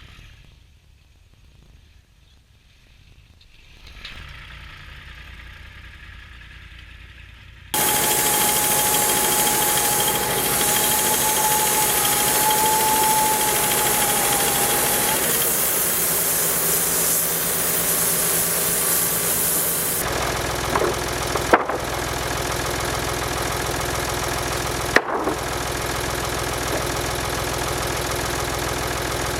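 An engine running steadily, coming in abruptly about eight seconds in after a quiet stretch with a low hum. A steady whine sits over it for several seconds, and two sharp clicks come near the end.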